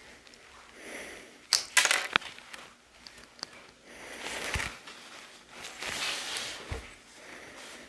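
Small plastic LEGO pieces being handled and snapped together: a cluster of sharp clicks and rattles about two seconds in, then softer rustling.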